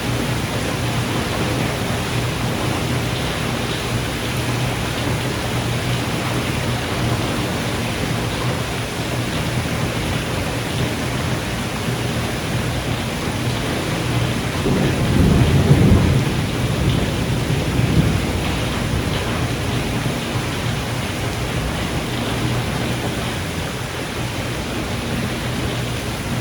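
Steady heavy rain, with a rumble of thunder swelling up about two-thirds of the way through and fading over a few seconds.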